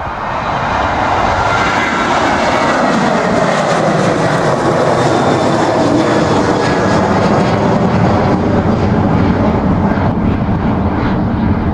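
Boeing 737-800's twin CFM56 turbofan engines at takeoff thrust as the airliner climbs out after liftoff: a loud, steady jet noise that builds over the first second and then holds.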